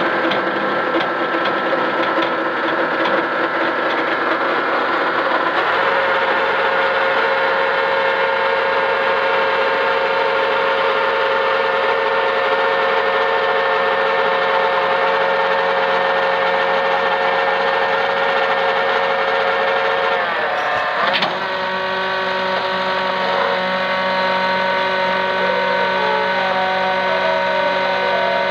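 Mustang 2064 skid steer engine running steadily, its pitch shifting about six seconds in and again about twenty-one seconds in.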